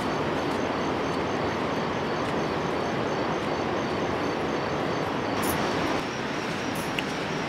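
Steady rushing outdoor background noise, with a thin high-pitched chirp repeating evenly about three times a second over it.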